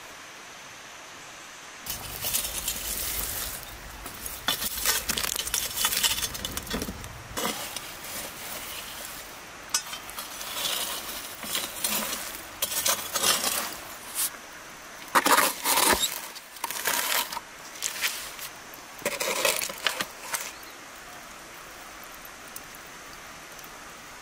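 Glowing embers and ash being raked and scraped across the floor of a mud oven with a metal tool, in irregular scrapes with metallic clinks, starting about two seconds in and stopping about four seconds before the end.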